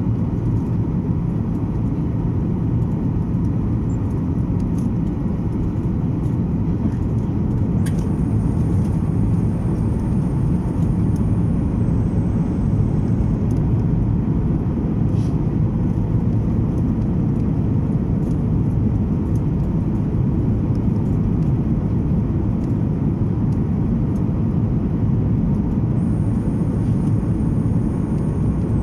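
Steady jet airliner cabin noise inside a Boeing 737 in flight: the constant low rush of engines and airflow, with no change in pitch or level.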